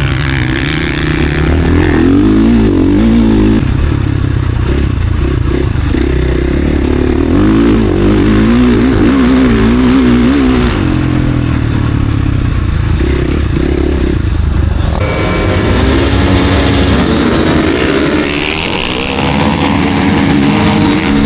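Four-stroke KTM SX-F motocross bike engine revving hard, its pitch rising and falling again and again as the throttle is opened and closed. About fifteen seconds in, a second, higher and steadier engine note joins in.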